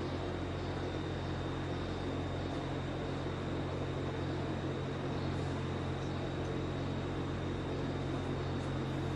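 Steady low mechanical hum with a thin high whine above it, unchanging.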